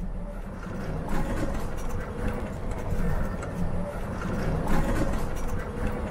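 A small open vehicle driving over cobblestones, its motor running with a faint steady whine under the road rumble, and the body rattling and knocking over the stones.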